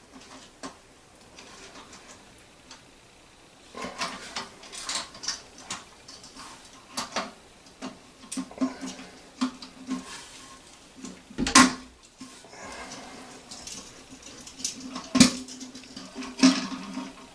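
Irregular clicks and knocks of toilet-tank parts being handled as a new fill valve is fitted and set, with two sharper knocks, one past the middle and one near the end.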